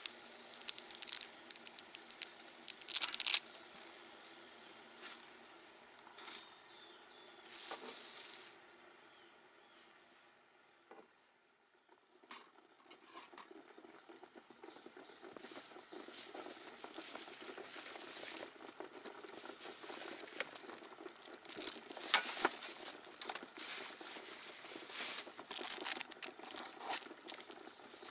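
Water boiling in a mess tin on a small camp stove, with plastic packaging crinkling and scattered clicks and taps of handling cooking gear, loudest about three seconds in and again in the second half.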